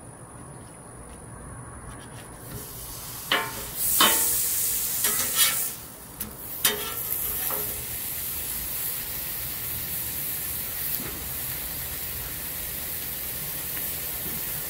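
A block of ground beef starts sizzling on a hot flat-top griddle with a loud hiss about four seconds in, then settles into a steady sizzle as it sears. A few sharp clacks of the steel spatulas against the griddle come as the meat goes down.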